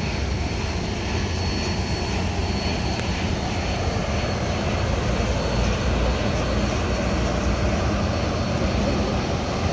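Union Pacific passenger cars rolling past at close range: a steady rumble of steel wheels on the rails, swelling slightly about halfway through as the last car goes by.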